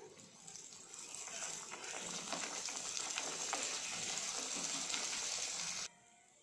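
Food frying in hot oil in a metal wok, sizzling loudly after building over the first two seconds, with light clicks of a metal spoon stirring against the pan. The sizzle cuts off abruptly near the end.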